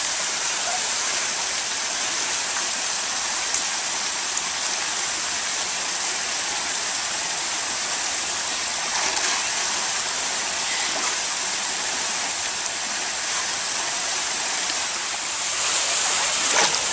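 Steady rushing hiss of running water, a little louder near the end.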